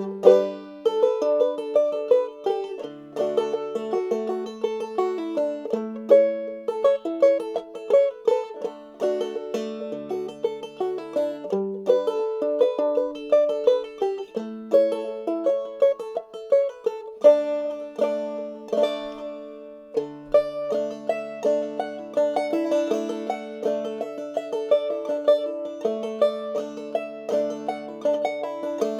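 Clawhammer banjo in double D tuning playing a lively old-time tune, a steady, rhythmic stream of plucked notes.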